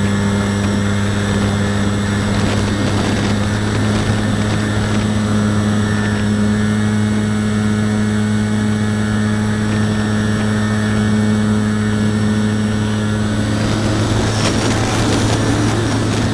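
Parkzone Radian RC glider's electric motor and propeller running at a steady, unchanging pitch, with a rush of air noise swelling near the end.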